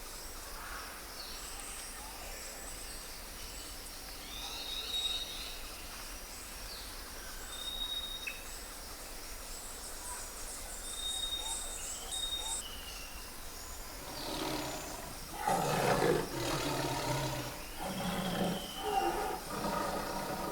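Quiet forest ambience with birds whistling and chirping, then, about two-thirds of the way in, a Bengal tiger growling and roaring in a series of loud, rough calls.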